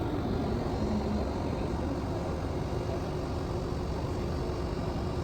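Steady low rumble with a faint steady hum running through it.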